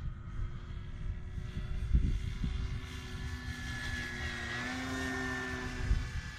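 Dynam C-188 Air Tractor RC plane's electric motor and propeller whining steadily as it flies by, the pitch shifting slightly a little past the middle. Wind rumbles on the microphone, with a sharp thump about two seconds in and another near the end.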